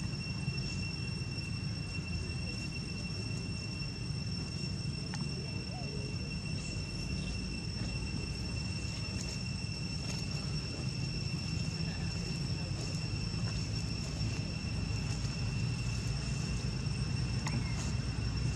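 Outdoor ambience: a steady, high-pitched insect drone over a low rumble, with a few faint ticks.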